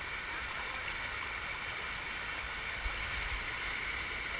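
Steady rush of a mountain stream running over rock slabs into a shallow pool, with a soft low bump about three seconds in.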